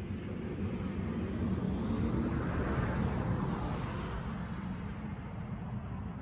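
A distant engine passing by: a steady rush that swells to its loudest about three seconds in and then fades.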